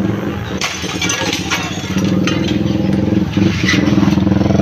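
A motor engine running steadily close by, getting louder about two seconds in, with short noisy bursts over it.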